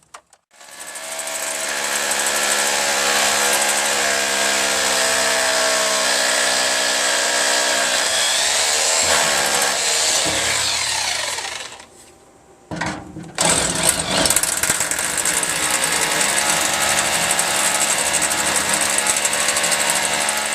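Hammer drill boring anchor holes down into concrete, running at full speed in two long runs with a short stop between them.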